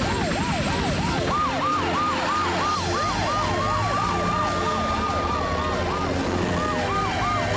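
Several cartoon emergency-vehicle sirens sounding together: fast rising-and-falling sweeps about three a second, layered at two pitches, with a slower wail that rises midway and sinks again near the end.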